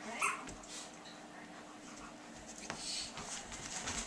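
Faint scuffling and scratching of a Caucasian Ovcharka puppy's claws on a tile floor during play with another dog, with a single click about two and a half seconds in and busier scratchy clicking near the end.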